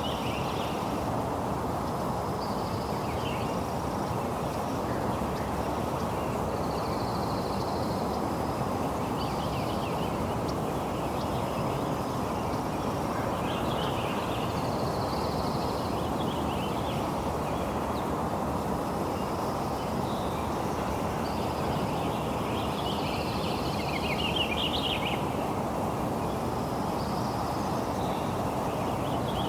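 Steady rain falling, with birds calling on and off over it; the busiest run of calls comes about 24 seconds in.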